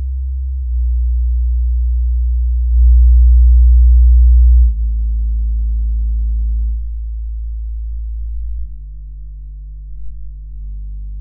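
A series of sustained low, pure-sounding tones. Each is held for about two seconds before stepping to a new pitch, and they get quieter toward the end.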